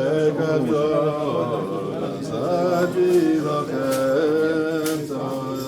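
A group of men singing a Jewish prayer melody together in unison, with a few sharp claps or knocks cutting through.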